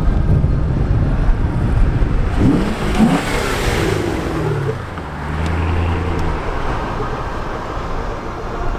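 Sports car engine accelerating over a low exhaust rumble. About two and a half seconds in, the pitch climbs sharply, then falls away into a steadier low drone.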